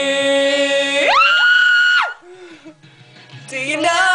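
A girl's voice singing, holding a long steady note on "me" that about a second in jumps to a much higher, shrill held note and breaks off at about two seconds; after a short gap the singing starts again near the end.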